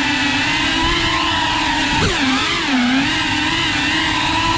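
FPV quadcopter's motors and propellers whining close to the microphone, the pitch dipping and rising with throttle changes, most sharply about two seconds in.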